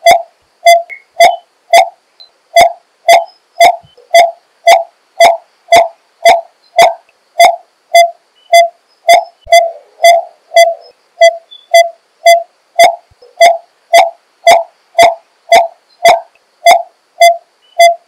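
Coppersmith barbet calling: a steady, evenly spaced series of single pitched notes, about two a second, kept up without a break.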